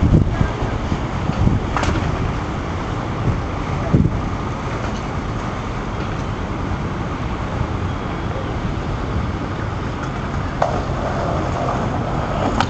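Steady outdoor background noise, a low rumble like distant traffic and wind, with a few short knocks, the clearest about two and four seconds in.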